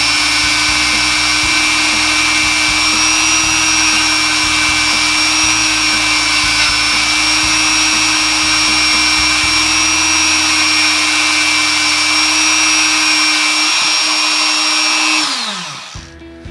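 Flex-shaft rotary tool spinning a felt buffing bit loaded with polishing rouge against a pistol barrel's feed ramp, a steady high whine. Near the end it is switched off and winds down to a stop.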